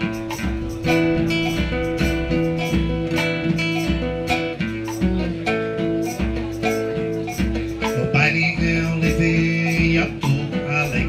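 Live instrumental break of a nylon-string acoustic guitar playing with drums keeping a steady beat.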